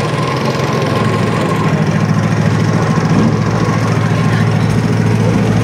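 Monster truck's engine idling steadily.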